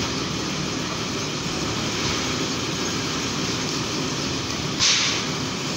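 Truck-mounted mobile crane's diesel engine running steadily while it holds a suspended load, with a brief loud hiss about five seconds in.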